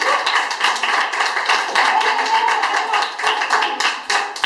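A group playing small hand percussion instruments and clapping: a dense, irregular clatter of quick taps.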